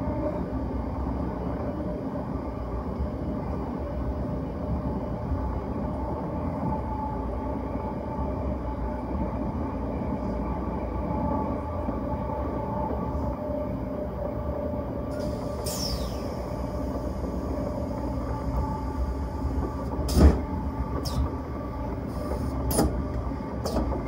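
Passenger train running along the line, heard on board as a steady rolling rumble with a constant hum. Sharp knocks come in the last few seconds, the loudest about 20 seconds in. Brief high squeals falling in pitch come about two-thirds through.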